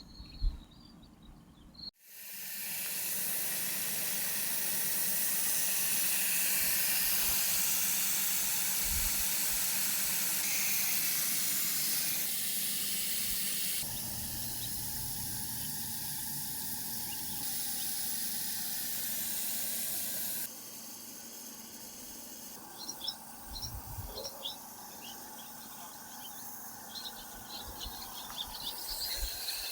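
Garden hose spraying water, a steady hiss that starts abruptly and changes level at a few points. Over the quieter spray in the last part, faint high chirping comes through.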